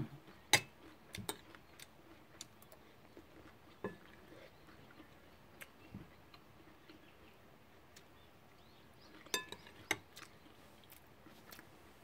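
Quiet eating sounds from a mouthful of a fresh vegetable wrap (ssam) being chewed, with scattered sharp clicks and light knocks, a few of them close together about nine to ten seconds in.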